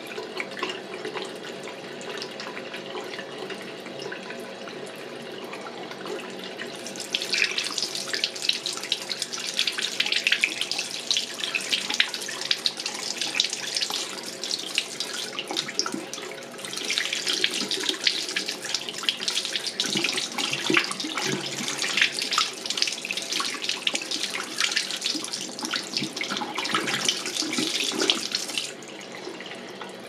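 Waterfall-spout basin faucet running a steady stream into the sink. About seven seconds in the sound turns louder and splashier as a hand is held in the stream, eases for a moment near the middle, goes on loud and splashy, and drops back to the plain steady flow near the end.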